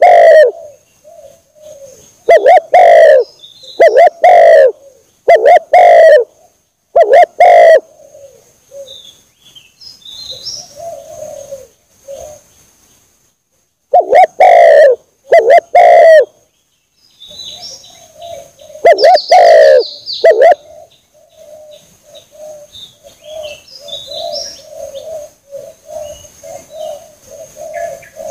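Spotted dove (tekukur) cooing over and over: loud paired coo phrases come in clusters with gaps, and softer cooing fills the stretches between them. Faint high chirps from other small birds are heard now and then.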